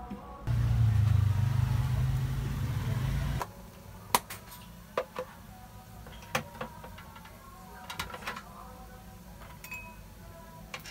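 Cabbage stir-frying in a pan over a gas burner: a low rumble with a sizzling hiss for about three seconds, cut off suddenly. After it, scattered light clicks and knocks of bowls, a spoon and plastic containers being handled on a small table.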